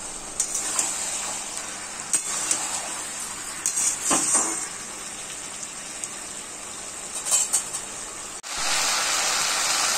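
Vegetables and fish heads frying dry in a metal kadai over a high flame, sizzling steadily, with a metal spatula scraping and clinking against the pan now and then as the mixture is stirred to drive off its water. The sound cuts out for an instant about eight and a half seconds in, then the sizzling comes back louder.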